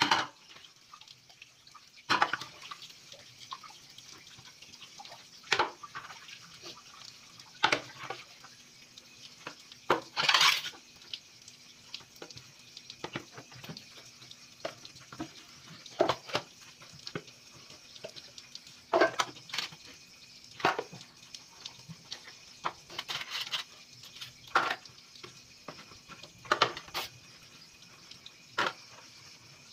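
Dishes being washed by hand: ceramic plates, plastic bowls and a steel pot clink and knock against each other as they are soaped and stacked, a knock every couple of seconds, with a longer scrubbing noise about ten seconds in.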